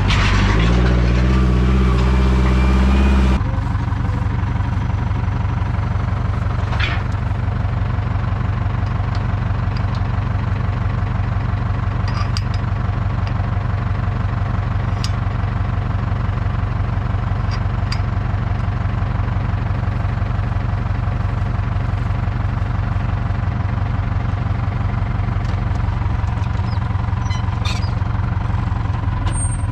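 Tractor diesel engine running steadily. It is louder for the first three seconds or so, then changes abruptly to a steadier, slightly quieter sound, with a few faint clicks later on.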